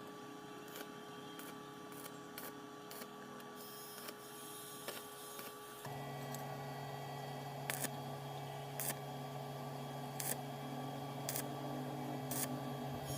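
Scattered light clicks and taps. About halfway through, a steady low hum starts and continues.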